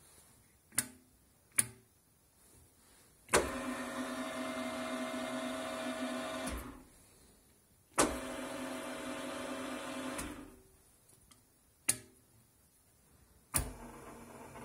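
Nova X-45 Super geared milling machine run from its push-button control panel. Sharp button clicks start the motor and gears running steadily for about three seconds. It stops and winds down, and this happens twice. Near the end another click is followed by a quieter steady hum.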